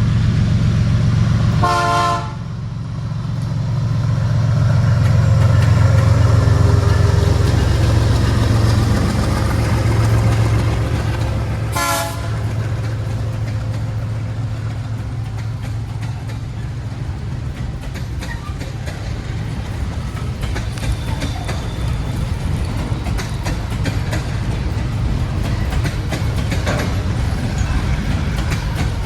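GE ES43BBi diesel-electric freight locomotive under full throttle, its engine giving a strong roar, with two short horn blasts: one about two seconds in and a briefer one near twelve seconds. After the second blast the engine sound eases into a steadier rumble as the train rolls by.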